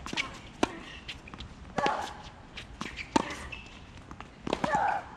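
Tennis rally on a hard court: sharp pops of the ball struck by rackets and bouncing on the court, several shots about a second or so apart.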